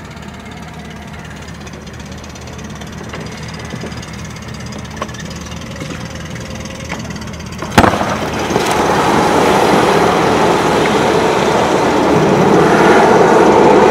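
Canister life raft bursting open with a single sharp crack about eight seconds in, set off by the jerk on the end of its painter line, then the inflation gas hissing loudly as the raft fills, the hiss growing stronger near the end. Before the crack, a low steady hum of an idling outboard motor.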